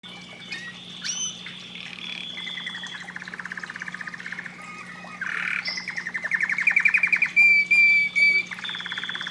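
Domestic canary singing: a long song of fast rolling trills and clear whistled notes, growing louder from about halfway through.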